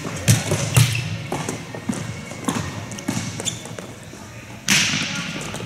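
Volleyballs being struck and bouncing on a court floor in a large echoing gym: a run of sharp slaps and thuds at irregular intervals, the loudest near the end.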